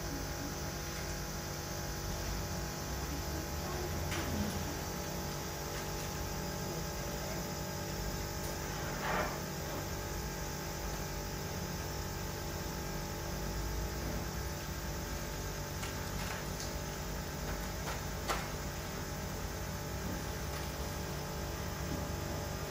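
A steady low hum with several faint steady tones underneath, broken by a few brief, faint sounds scattered through.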